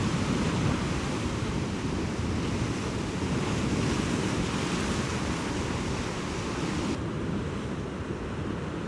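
Sea surf washing against a rocky shore, a steady hiss and rush of water, with wind buffeting the microphone. The higher hiss drops away suddenly about seven seconds in.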